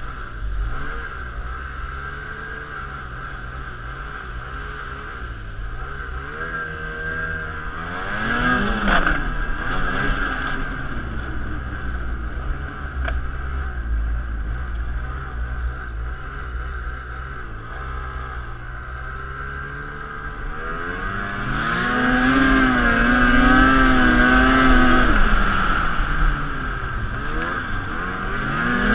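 Ski-Doo Renegade snowmobile's 600 E-TEC two-stroke twin engine running under way. It revs up briefly about eight seconds in, and again near twenty-one seconds in for a louder, longer pull before easing off.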